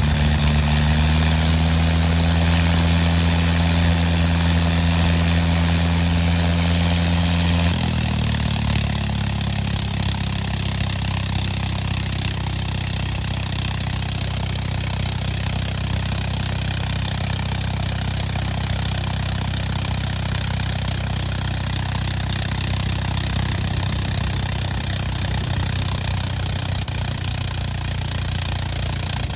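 The nine-cylinder Gnome Monosoupape rotary engine of a Fokker E.III Eindecker reproduction is running on the ground, its propeller turning. About eight seconds in, the engine note drops to a lower, steadier speed and holds there.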